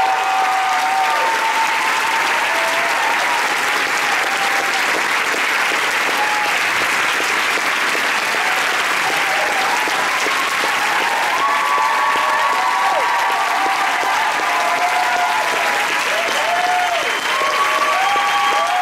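A large theatre audience applauding steadily, with voices cheering and whooping over the clapping, more of them in the second half.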